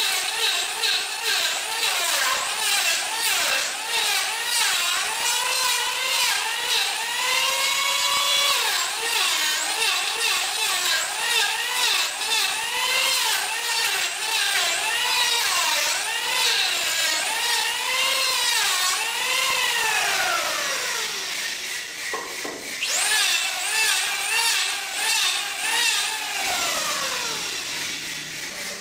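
Handheld electric planer shaving a curved wooden handrail section. Its motor whine dips and recovers over and over as the blades bite and run along the wood. Near the end it is switched off and winds down in a falling whine.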